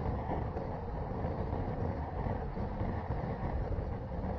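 Wind buffeting the microphone of a handlebar-mounted GoPro on a road bike riding at speed: a steady, gusty rushing that sits mostly low, with no pauses.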